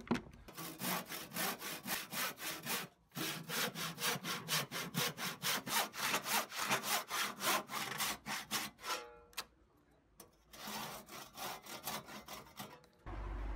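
Hand saw cutting across a timber board in quick back-and-forth strokes. It stops briefly about three seconds in and pauses for about a second near ten seconds, then saws on almost to the end.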